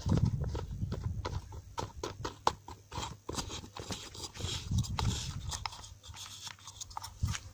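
An old Soviet spinning reel being handled close to the microphone: irregular clicks and small knocks, several a second, as fingers turn and work its spool, with low handling thumps at the start and about five seconds in.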